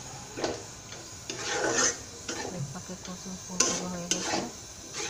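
A spatula stirring food frying in oil in a metal pan, scraping the pan in repeated strokes, with a light sizzle.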